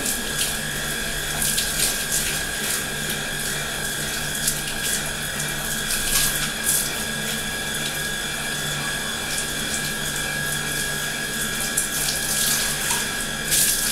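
Water spraying from a handheld shower head onto long hair and splashing into a bathtub, with a steady low hum underneath.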